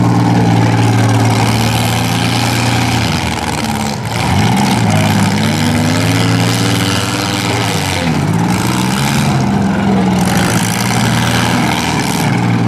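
Engines of compact demolition-derby cars running hard and revving, the pitch holding and then swooping up and down several times. Bursts of hiss come in over them in the second half.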